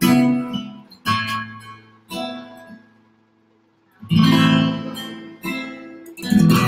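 Acoustic guitar strummed one chord at a time, each chord left to ring and fade. A pause of about a second falls in the middle before the strumming resumes.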